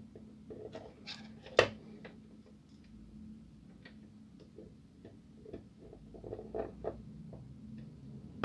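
A screwdriver working along the plastic frame and metal cleaning blade of a Kyocera DK-150 drum unit, making scattered light clicks, taps and scrapes. One sharp click comes about one and a half seconds in.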